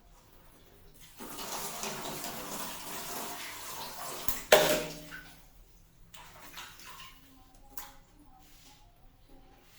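Water running for about three seconds, then a water balloon bursting with one sharp pop and a splash about four and a half seconds in, followed by a few faint drips and clicks.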